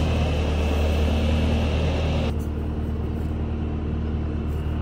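Bobcat T595 skid steer's diesel engine running at a steady speed, a continuous low hum. About two seconds in the higher hiss drops away abruptly while the engine hum carries on.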